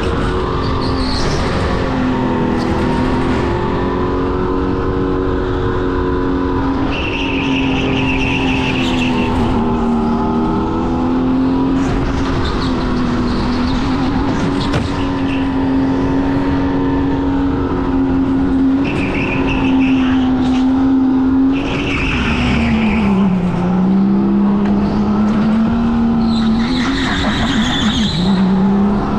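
Go-kart motor running hard through a lap, its pitch rising and falling with the corners and dipping low about two-thirds of the way through. Tyres squeal briefly several times in the turns.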